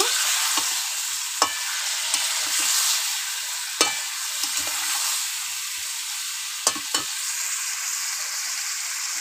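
Chicken pieces, potatoes and spice paste sizzling in oil in a metal kadai while a metal spatula stirs them, a steady frying hiss. About four sharp clicks of the spatula knocking against the pan.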